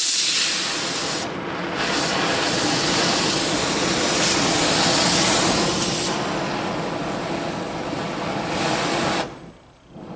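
Oxy-fuel cutting torch flame hissing steadily while it is set to a neutral flame and heats an aluminum bar. The hiss starts abruptly, drops out for about a second near the end, then comes back a little quieter.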